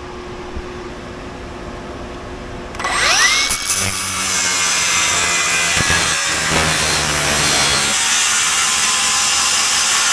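A steady fan hum, then about three seconds in an angle grinder spins up with a rising whine and cuts into a metal exhaust pipe to free the O2 sensor bung, a loud steady cutting noise.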